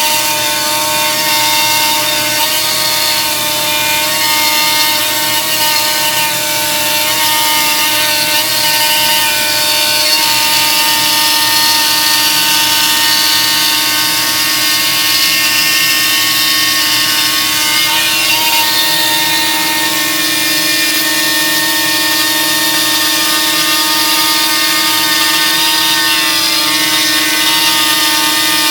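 CNC router's trim-router spindle running steadily with a high whine as its bit cuts parts out of a plywood sheet.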